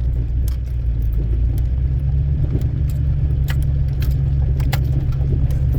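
Pickup truck's diesel engine running with a steady low drone, heard from inside the cab, with scattered light rattling clicks over it.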